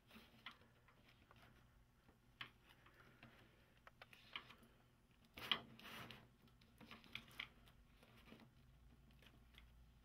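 Faint rustling and scratching from hand-sewing: waxed twine drawn through polyester tubular webbing and sailcloth by hand, in short scattered strokes. The loudest rustle comes about five and a half seconds in.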